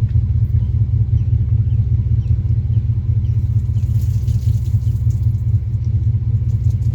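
A steady, fluttering low rumble.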